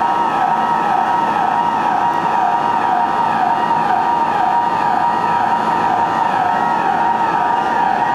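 Subway station emergency alarm buzzer sounding continuously on the platform: a loud warbling tone that rises and falls about three times every two seconds, over steady higher tones.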